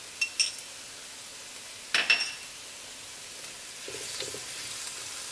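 Sauce bubbling and sizzling in a cast iron wok. A spoon clinks against a bowl twice just after the start and again, louder and ringing, about two seconds in, as cornstarch slurry goes in. From about four seconds a plastic spatula stirs through the chicken and the sizzle grows louder.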